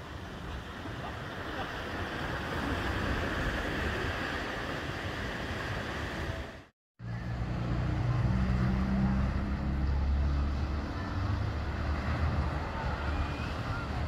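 Steady outdoor rushing noise, broken by a split-second gap of silence about halfway through, after which it returns with a heavier low rumble.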